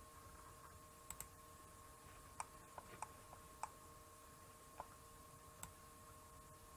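Faint computer mouse clicks, eight or so single clicks at irregular spacing, over a faint steady electrical hum.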